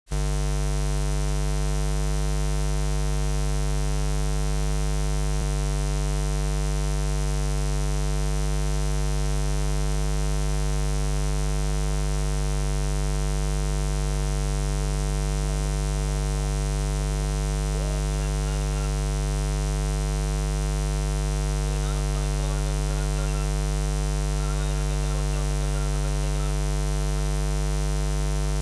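Loud, steady electrical mains hum: a low buzz with a ladder of overtones, unchanging in level. Faint wavering sounds come and go underneath it in the second half.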